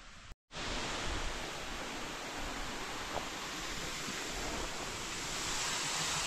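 Waterfall: a steady rush of falling water that starts abruptly about half a second in and grows slightly louder toward the end.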